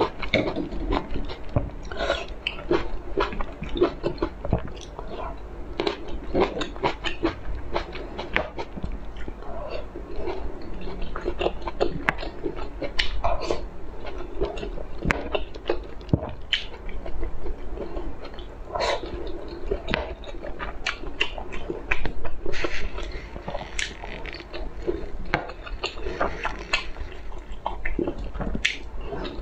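A person chewing and eating soft seafood pieces, with many small irregular wet mouth clicks and smacks throughout.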